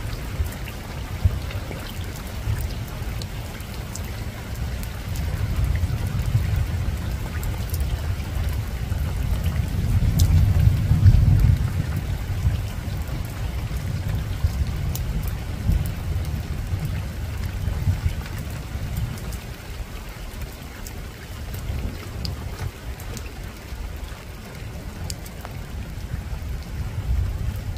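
Soft, steady rain falling on a rooftop, with individual drops ticking here and there. A low rumble of distant thunder builds, peaks about ten seconds in, then fades away.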